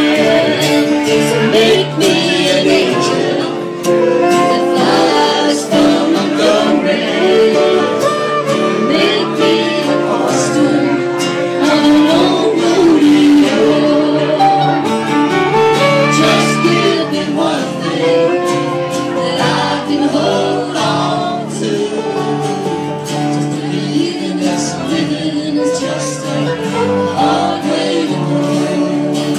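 Live acoustic folk band playing a tune: a fiddle carries a gliding melody over guitar accompaniment.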